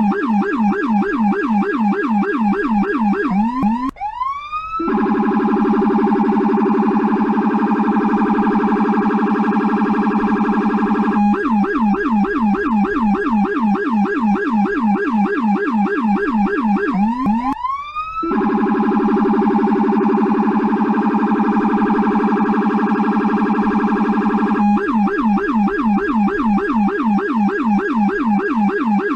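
US police electronic siren switching between a quick yelp and an even faster warble about every six seconds, with a short rising sweep between them.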